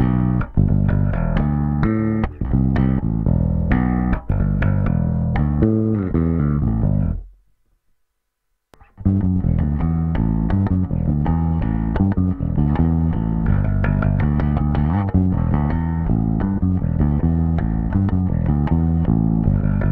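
Samik electric bass guitar with Wilkinson MWPB and MWJB pickups, played in a pickup demo. It starts with a run of bass notes, both pickups on and the tone at maximum. About seven seconds in there is a second or so of silence at an edit cut, then steady bass playing resumes.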